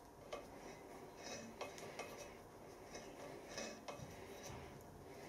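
Faint, irregular metallic clicks and ticks as a quarter-inch Whitworth tap is turned by hand in its tap holder, cutting a thread into the cast-iron flywheel.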